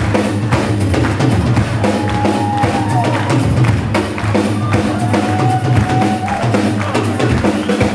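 Live punk rock band playing: drum kit, electric bass and electric guitar through the venue's amplification, heard from the audience.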